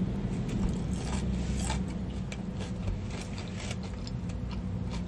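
Someone eating a fast-food sandwich in a car: scattered light crinkles and clicks from handling the wrapper while eating, over a steady low hum in the car's cabin.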